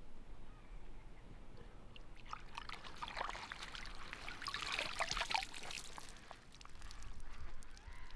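Water splashing and dribbling as a large bream is let go in the lake margin and kicks away with its tail. The splashing starts about two seconds in and dies away after about six seconds.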